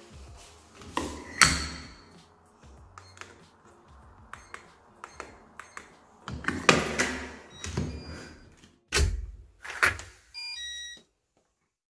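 Digital keypad door lock with a lever handle in use: light clicks, then several heavy thunks of the handle and door, and near the end the lock's short electronic chime of stepped beeps.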